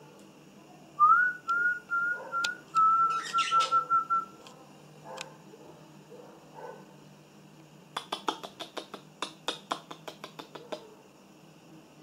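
Budgerigar whistling a short phrase of clear notes, a quick rising note followed by a run of short, even notes at one pitch, broken briefly by a bit of scratchy chatter. Later comes a fast series of sharp beak clicks, about five a second, lasting a few seconds.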